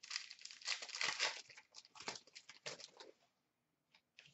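Hockey card pack wrapper being torn open and crinkled in the hands: a dense run of crackles that stops about three seconds in.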